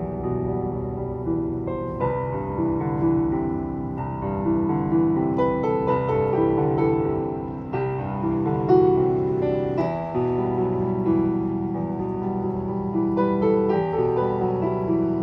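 Digital piano playing slow, sustained chords of soft meditation music.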